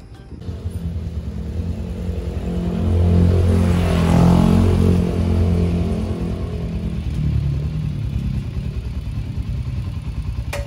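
Mash 400 motorcycle's single-cylinder engine running. It swells louder for about two seconds near the middle, then settles back to a steady run.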